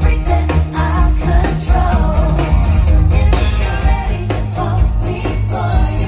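Live pop band performing through a concert PA: female lead vocals over a heavy bass line, drum kit and keyboards.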